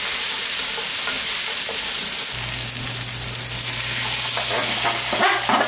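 Roasted oxtail sizzling in a hot enamelled cast-iron pot over a medium-high gas flame as it is stirred, with a low steady hum coming in about two seconds in. Near the end, scraping and clatter as the roasting tray's drippings are poured and scraped into the pot.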